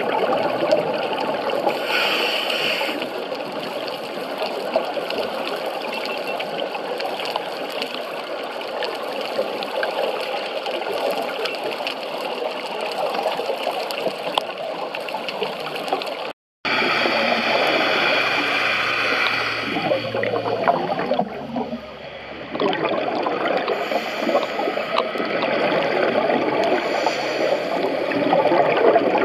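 Underwater sound as picked up by a diver's camera: a steady muffled rush of water with bubbling and gurgling from scuba divers' exhaled bubbles. A brief higher hiss comes about two seconds in and again a little past halfway, and the sound drops out for an instant shortly before that.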